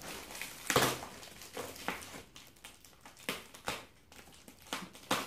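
Scissors snipping and working at packing tape and plastic bubble wrap on a parcel: irregular short crinkles and snips, the sharpest about a second in.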